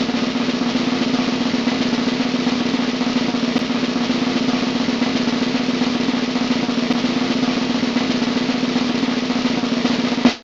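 Snare drum roll, steady and unbroken for about ten seconds, cutting off abruptly near the end: the suspense roll played before an award winner is announced.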